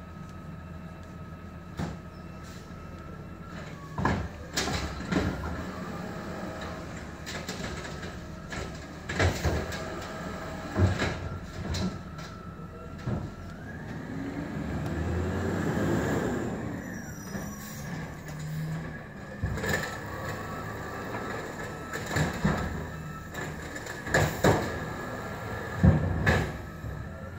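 Automated side-loader garbage truck working a row of curbside bins: its diesel engine runs with a steady hydraulic whine, and it revs up and back down about halfway through as the arm lifts. Sharp bangs come every few seconds as bins knock against the arm and hopper and are set back down.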